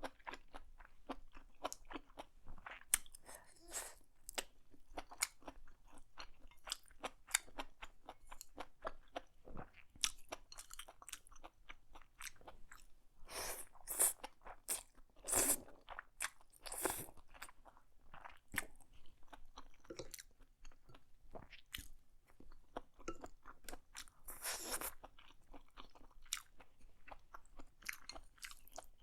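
Close-miked eating: chewing of black bean noodles with mushrooms and shrimp, full of quick wet mouth clicks. There are several louder, longer bursts of noise in the middle and again near the end.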